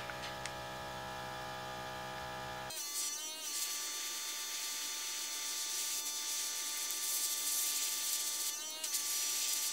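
Small airbrush compressor humming steadily, then, a little under three seconds in, a steady hiss of air through the airbrush as it sprays black paint onto a crankbait. The hiss wavers briefly a couple of times.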